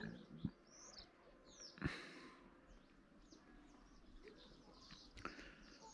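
Faint small birds chirping in scattered short calls, with two soft knocks about half a second and two seconds in.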